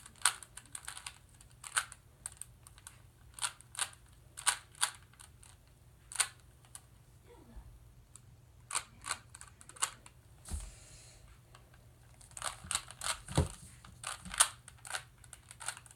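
Plastic Rubik's cube being turned by hand in a speed solve, its layers clicking in quick, irregular runs.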